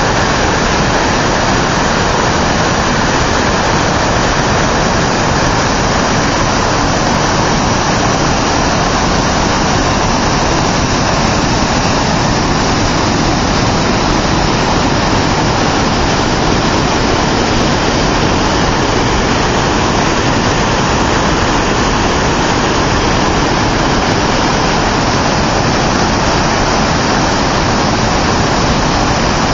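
Floodwater rushing, a loud steady roar of heavy flowing water.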